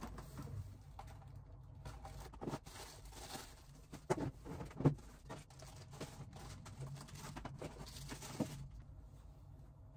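Groceries being unpacked by hand: a plastic shopping bag rustling and items being picked up and set down, with a few soft knocks about four and five seconds in, over a steady low hum.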